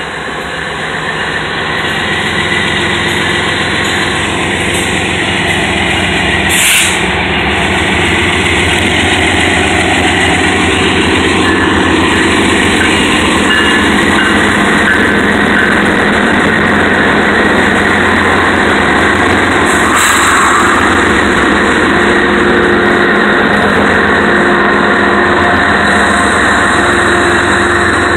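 Canadian National freight train passing close by: the diesel locomotives' engines running loudly and steadily, then the freight cars rolling past on the rails. A short burst of noise about seven seconds in.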